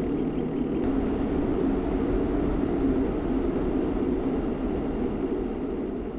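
Steady wind rush on the microphone of a moving bicycle, a low even rumble with no breaks, easing off slightly near the end.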